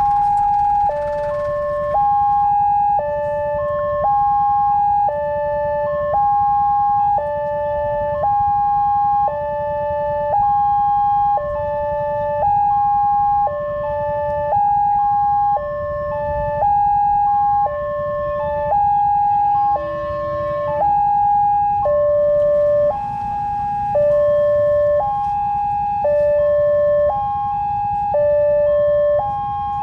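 Railway level-crossing alarm sounding a two-tone hi-lo siren. It alternates evenly between a higher and a lower pitch about once a second while the barrier is down and no train has arrived yet.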